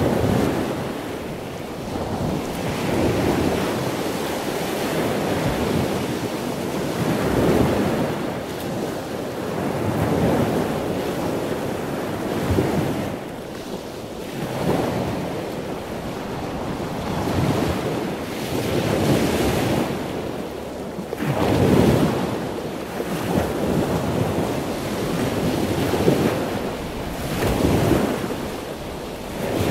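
Wind rushing over the microphone of a camera moving along at riding speed, swelling and easing in surges every two to three seconds.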